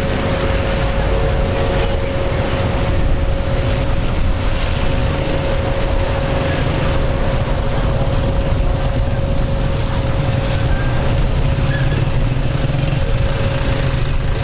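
Steady airport apron machinery noise beside a parked airliner: a low rumble with a constant whining tone held throughout.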